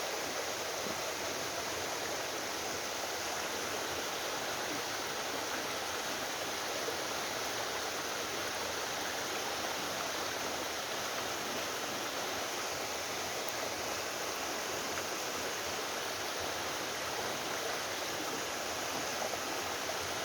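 Waterfall on a mountain stream, water pouring in a steady, even rush.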